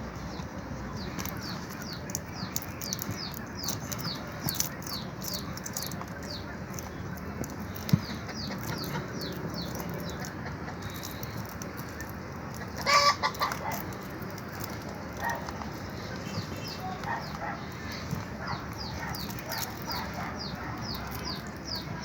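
Animal calls: a steady run of short, high, falling chirps, about three a second, and about halfway through a louder pitched call lasting about a second.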